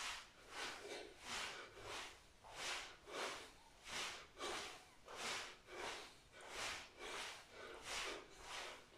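A person breathing hard in a quick, even rhythm while exercising, each breath a short noisy puff, about three every two seconds.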